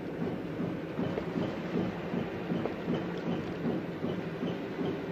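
Boat's engine running with a steady low rumble and a faint, regular tick.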